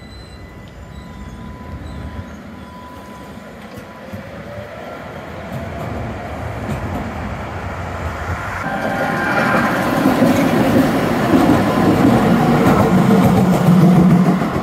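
Street trams running on city track: steel wheels rumbling and clattering over the rails, growing louder until a tram passes close by in the last few seconds.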